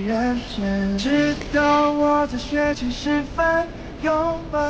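Background song: a voice singing a slow melody of held notes over soft accompaniment.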